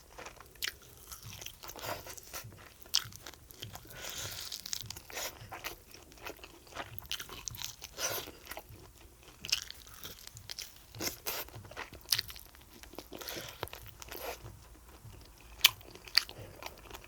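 A person chewing and biting food close to the microphone: irregular crunches and sharp clicks with soft wet mouth sounds between them, and two louder snaps near the end.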